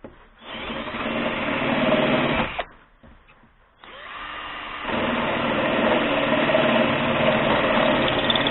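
14.4 V cordless drill boring into the sheet-steel sill of a car. It runs for about two seconds, stops briefly, then starts again and grows louder a second later as it bites into the metal, running steadily after that.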